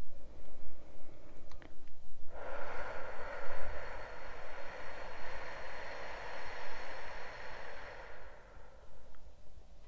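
A person breathing out in one long, slow exhale of about six seconds. It starts suddenly a couple of seconds in and fades away near the end.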